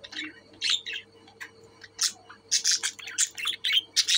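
Budgerigars chirping and squawking in quick, short calls. There is a brief lull about a second in, and then the calls come thick again.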